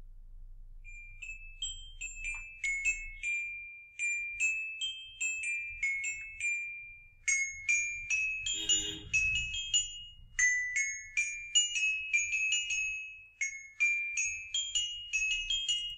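Toy xylophone with coloured bars struck one by one with a mallet, playing a simple tune of short, high, bright ringing notes at about two to three strikes a second.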